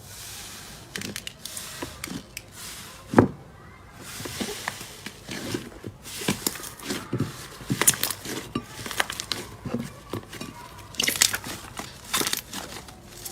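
Slime being squeezed and stretched by hand, with irregular crackles, clicks and small pops; the loudest is a sharp pop about three seconds in.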